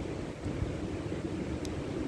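Spring wind rumbling on the microphone over the steady rush of a river, with one faint campfire crackle about one and a half seconds in.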